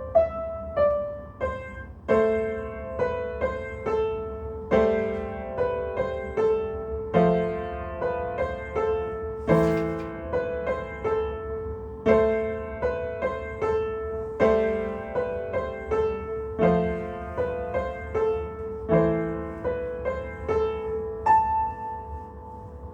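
Piano playing a carol in a steady rhythm, one middle-high note sounding throughout under the melody and chords, ending on a held note that rings out near the end.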